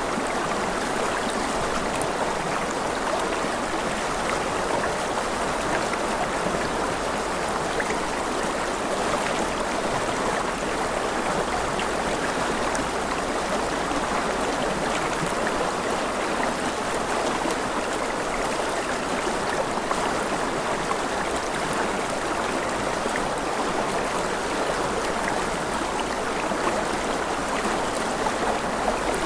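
A stream of water flowing steadily, an even, unbroken rush with faint scattered drips.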